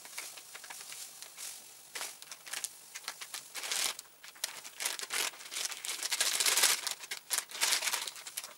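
Plastic packet crinkling in the hands as crystal-growing powder is shaken out of its snipped corner into a glass jar of water. The rustling comes in irregular bursts, loudest in the second half.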